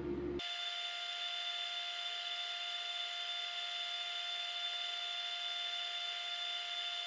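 A steady machine-like whine made of several fixed high tones. It cuts in abruptly about half a second in, and the deeper room sound drops out at the same moment.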